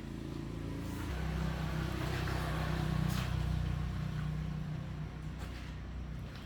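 A machine running with a low, steady hum that swells over the first few seconds and then eases off, with a few light clicks.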